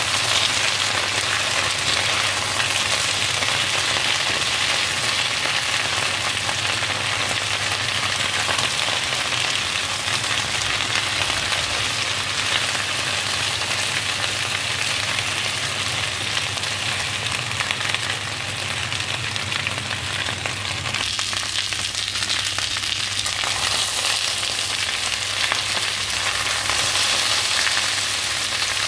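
Sliced raw potatoes sizzling steadily as they fry in oil in a frying pan, turned now and then with a plastic slotted spatula.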